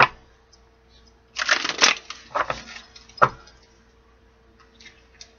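A tarot deck being shuffled by hand. There is a sharp snap at the start, a short flurry of cards about a second and a half in, then a couple of single taps of the cards and a few faint ticks near the end.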